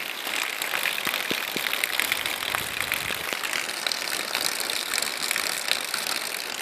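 Heavy rain pouring down: a steady hiss dotted with many small ticks of drops striking surfaces.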